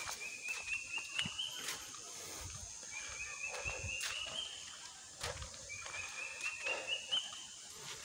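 Forest wildlife calling: a short call of quick notes, rising slightly in pitch, repeated about every three seconds over a steady high insect whine. Footsteps on a paved path sound along with it.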